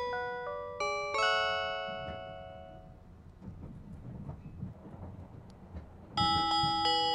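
Music-box-style onboard announcement chime of a 485-series train playing a classical melody. It ends on a ringing chord about a second in, which fades out. After a few seconds of faint low rumble, the next chime melody starts about six seconds in.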